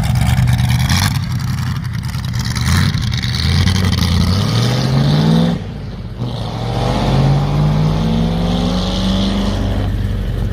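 A classic car's engine accelerating as it drives off, its pitch rising for about three seconds, dropping briefly about six seconds in, then rising again.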